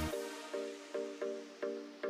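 Electronic dance music: the bass drops out at the start, leaving repeated short synth chords, about three a second.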